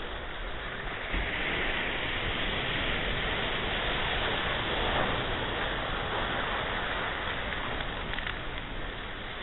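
Ocean surf: a wave breaks about a second in and washes in as a steady hiss, easing off near the end.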